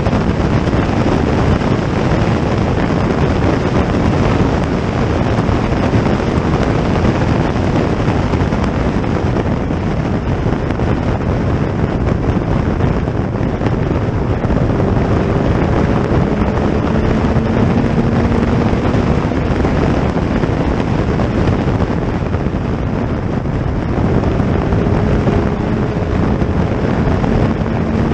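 Racing car engines running under heavy wind noise on the microphone, which covers most of the sound. A faint engine note rises slowly about halfway through and again near the end.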